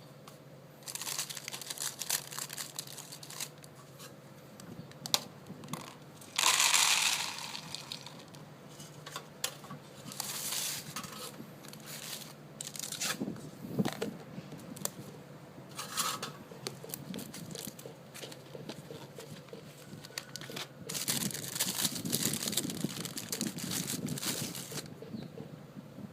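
Crinkling and rustling handling sounds with scattered clicks, a short louder rush of noise about six seconds in, and a longer, busier stretch of rustling near the end.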